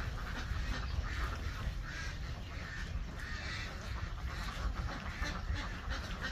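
Domestic ducks quacking, many short irregular calls overlapping, over a steady low rumble.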